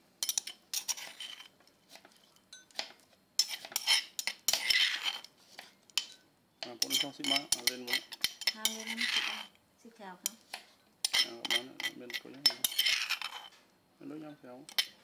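Metal spoon scraping and clinking against a stone mortar while scooping out crushed peanuts, in four or five short bouts with brief pauses between.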